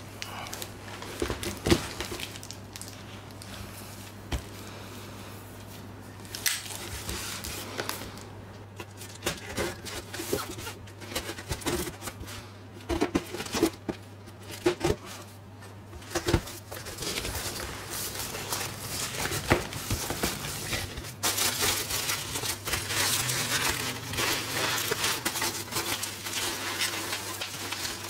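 A cardboard shipping box being handled and opened: scattered knocks and taps on the cardboard with rustling and scraping between them, and steadier rustling through the last third. A faint low hum runs underneath.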